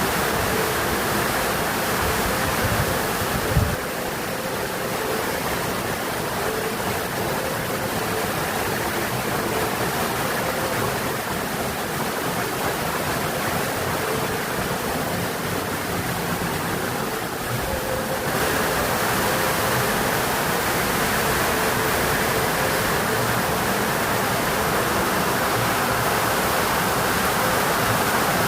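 Heavy rain drumming on a galvanized corrugated-iron roof, a dense steady patter. There is a brief thump about three and a half seconds in, and the rain grows brighter and a little louder about eighteen seconds in.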